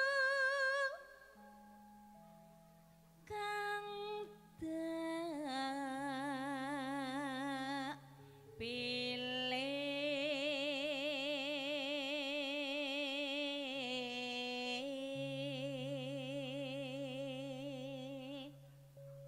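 Female sinden singing a slow Javanese tayub melody in long held phrases with a strong, wavering vibrato and sliding pitch steps, over steady low sustained accompaniment notes. The phrases break off briefly about a second in, around four seconds and around eight seconds, and the singing stops near the end.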